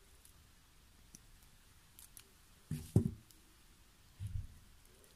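Light clicks and handling noise as hands work round-nose pliers and thin wire at a mizuhiki flower's stem, with a dull knock about three seconds in, the loudest sound, and a softer one a second later.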